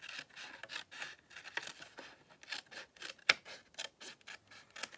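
Scissors cutting a square of paper diagonally from corner to corner: a string of short, irregular snips, with one sharper click about three seconds in.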